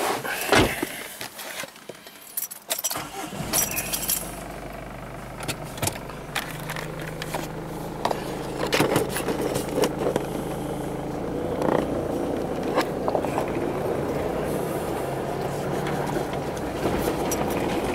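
Mitsubishi Montero 4x4 getting under way on a rough dirt track: clicks and a thump in the first seconds, then its engine comes in about three seconds in and runs steadily as the vehicle drives over the ruts, with occasional knocks from the bumps.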